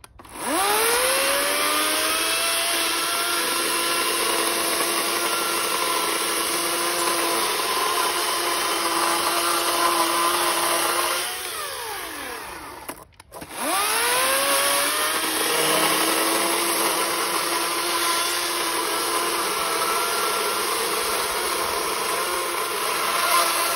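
EGO 16-inch battery electric chainsaw with a conventional chain rip-cutting a maple log lengthwise: the motor whines up to speed, runs steady for about ten seconds, then winds down with a falling whine. After a short break it spins up and cuts again, winding down right at the end.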